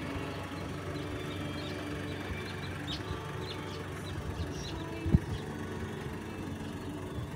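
A pickup truck's engine idling steadily, with faint bird chirps in the first half and a single sharp thump about five seconds in.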